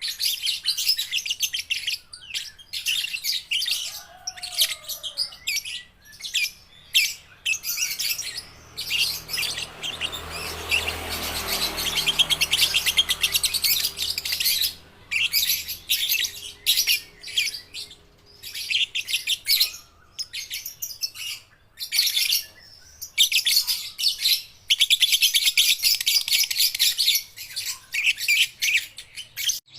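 Juvenile lovebirds chattering in rapid, shrill bursts of chirps, some short and some drawn out over several seconds, with brief pauses between.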